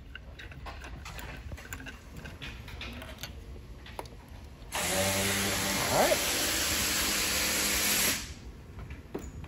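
A power tool runs steadily for about three seconds, starting about halfway in and stopping abruptly, with a whirring hiss over a steady hum. Before it, only faint clicks of parts being handled.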